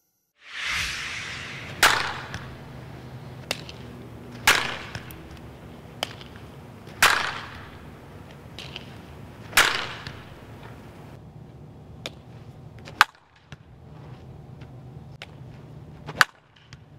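Softball bat striking pitched balls in batting practice: a series of sharp cracks, about one every two and a half seconds, six loud hits in all with a few lighter clicks between, over a steady low background hum.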